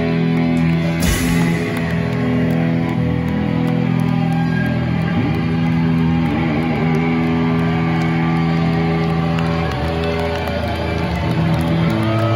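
Live rock band's distorted electric guitars holding droning chords and feedback, with a cymbal crash about a second in, as the song winds down.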